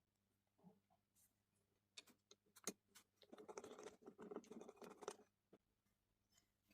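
Mostly near silence, with a few faint clicks about two seconds in, then about two seconds of faint scratching.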